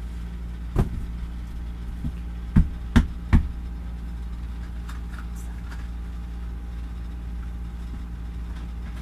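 A steady low machine hum runs throughout, with four sharp knocks in the first few seconds, the last three close together.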